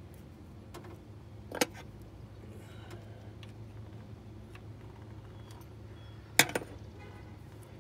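Two sharp metal clicks, about five seconds apart, from a spanner working the lock nut on a rocker-arm adjusting screw of a Land Rover 200TDI diesel's valve gear while the valve clearance is set, with a few faint ticks between, over a low steady hum.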